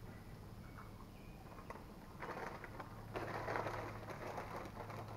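White paper food bag rustling and crinkling as it is handled, starting about two seconds in and getting louder toward the middle.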